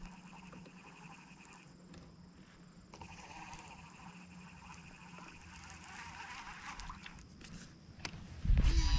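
Quiet handling of a rod and reel over a faint steady hum. Near the end comes a cast: a loud rush of air from the rod swing, then the Shimano Scorpion DC baitcasting reel's spool starts to spin out with the high, falling whine of its digital cast control.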